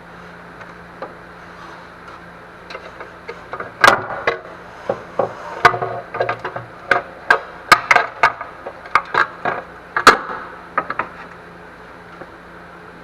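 Irregular sharp knocks and clanks of tools and engine parts being handled while a loosened part is worked out from the top of the engine, some fifteen strikes starting about four seconds in and dying away near eleven seconds.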